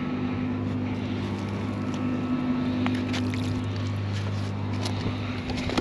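An engine running steadily at idle, with scattered light clicks over it.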